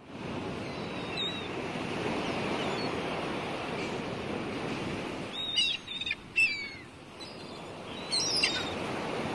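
Seaside ambience: a steady wash of waves with birds chirping over it, a few short calls about a second in, a cluster of falling chirps around five to six and a half seconds in, and more near the end.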